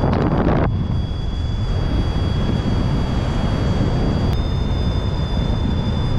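Wind rushing over the microphone during paraglider flight, a steady low rumble with a louder gust in the first moment.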